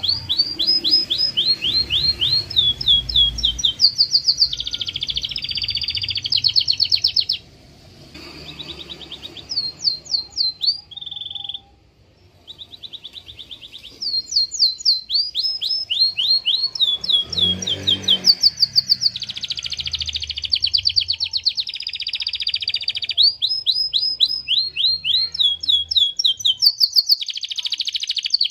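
Canary singing a long, fast song of rapidly repeated high notes and rolling trills that change from phrase to phrase every second or two, with a couple of brief pauses about a third of the way through.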